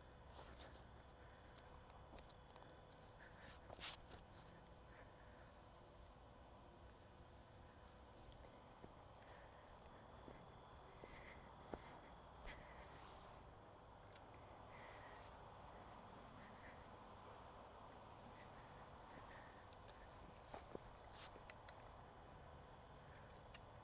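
Faint crickets chirping in an even, repeating rhythm, with a few soft knocks and rustles of hand work in garden soil.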